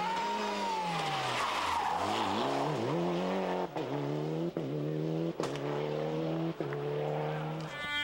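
Mitsubishi Lancer Evolution rally car's turbocharged four-cylinder engine. Its note falls as the car slows for a tarmac corner and blips up and down a couple of times on the downshifts. It then accelerates away with four quick upshifts, each a brief dip in the sound, and a different engine note takes over near the end.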